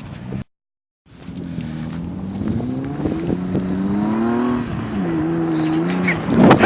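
Kia Sorento's engine revving hard in mud, its pitch climbing for a few seconds, dipping, then holding higher. A loud rushing noise comes in near the end. The sound drops out completely for about half a second near the start.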